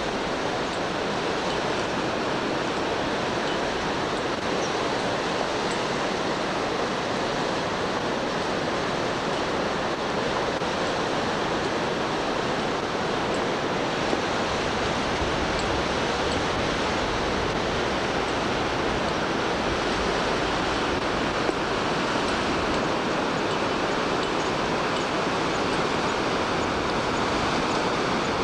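Steady rushing of a swollen mountain stream in flood, its water tumbling over boulders.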